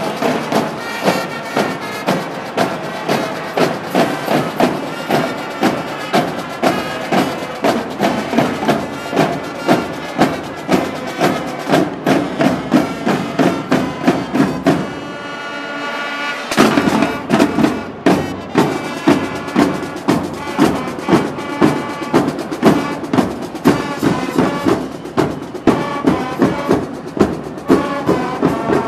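A military marching band playing a march, with snare and bass drums keeping a steady beat of about two a second under saxophones and brass. About halfway through the drums briefly drop out under a held chord, then come back in.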